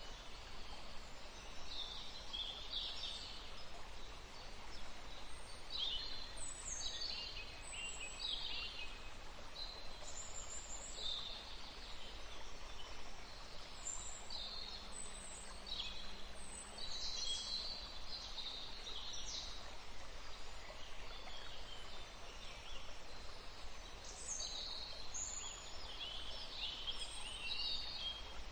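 Forest ambience: several songbirds chirping and calling in short, high phrases, some sweeping down in pitch, over a steady low background rumble and hiss.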